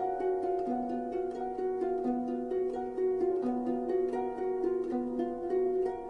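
Background music of quickly plucked string notes in a repeating pattern, with a lower note coming back about every 0.7 s.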